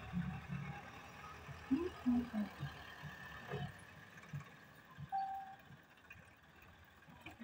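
Diesel farm tractor engines running, with a front-loader tractor backing away from the trolley it has just tipped a bucket of soil into.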